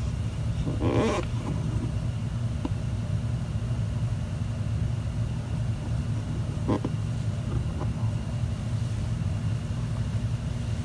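Steady low background hum, with a short voice-like murmur about a second in and a few faint clicks later.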